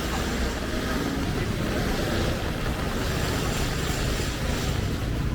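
Rainy city street ambience: a steady hiss, with the low rumble of motor traffic underneath.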